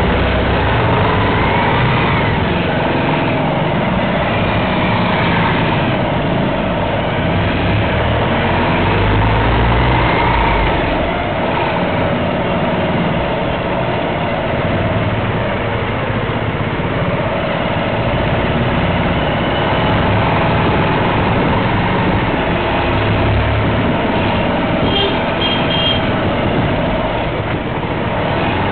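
Vehicle engines running in slow, close traffic, recorded from a motorbike creeping along just behind a school bus. There are a few short high beeps near the end.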